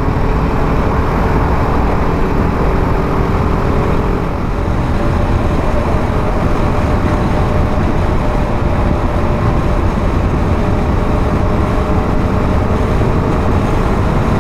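BMW G310 GS single-cylinder motorcycle under way: a steady engine drone mixed with wind and road noise.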